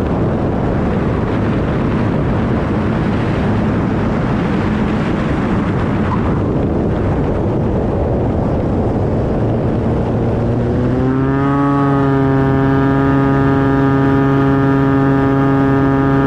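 Cessna 185 floatplane's piston engine and propeller heard from inside the cabin: a steady rushing noise, then about two-thirds through a droning tone rises in pitch and holds steady, as engine power comes up.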